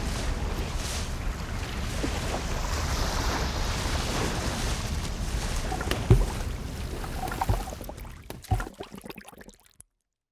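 Steady wind and sea-surf noise, with three short low thuds in its second half, fading out to silence near the end.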